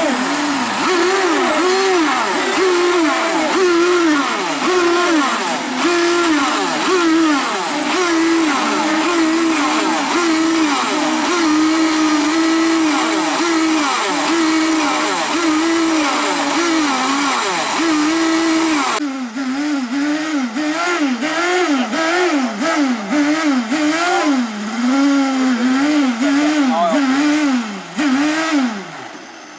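Several RC racing boats' small engines running at high revs, their overlapping pitches wavering up and down. From about 19 seconds in the level drops a little and one engine stands out, revving up and falling back again and again, about once a second.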